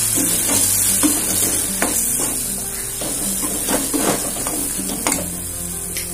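Tomatoes, small onions and spice powder sizzling in sesame oil in a metal kadai while a perforated metal spatula stirs and scrapes against the pan several times.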